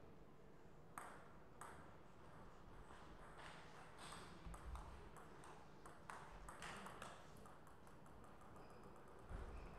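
Faint table tennis rally: sharp clicks of the plastic ball striking the rubber-faced paddles and bouncing on the table, a few strokes spaced out and then a quicker series near the end. There are a couple of low thuds, the loudest about 9 seconds in.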